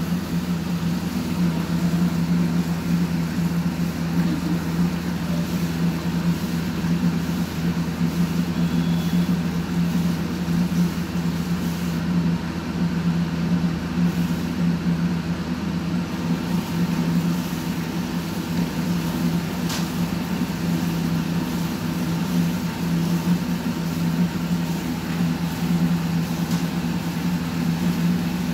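A machine's steady low hum, unchanging, over a faint even hiss.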